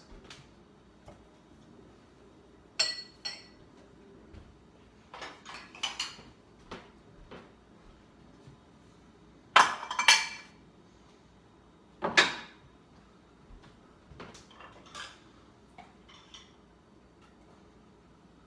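Dishes and cutlery clinking and clattering in scattered bursts as they are taken from the dishwasher and put away. There is a ringing clink about three seconds in, and the loudest clatters come about ten and twelve seconds in.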